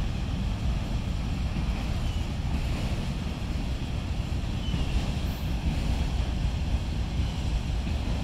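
Union Pacific freight train rolling past with a steady low rumble, mixed with wind buffeting the microphone.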